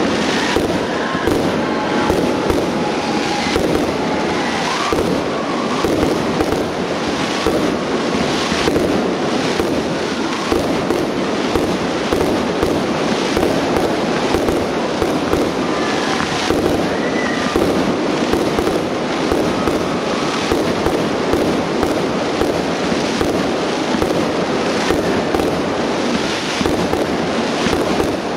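Aerial fireworks bursting overhead in a continuous barrage, with bangs and dense crackling following one another without a pause.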